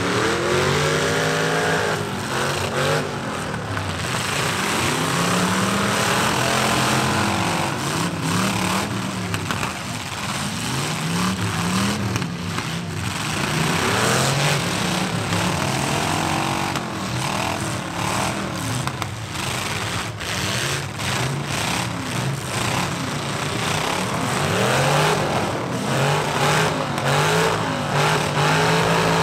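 Several demolition-derby pickup trucks' engines revving hard and falling back again and again, driven flat out, with repeated bangs of the trucks ramming each other.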